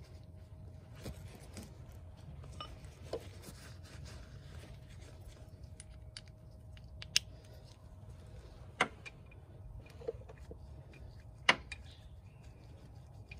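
Small metal clicks and clinks of an ATV's oil drain plug being handled and threaded back by hand into the aluminium engine case, over a low steady hum. Three sharper clicks come in the second half, the loudest near the end.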